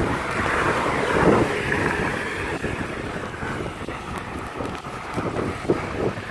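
Wind rushing and buffeting over the microphone of a moving bicycle, with tyre and road noise underneath.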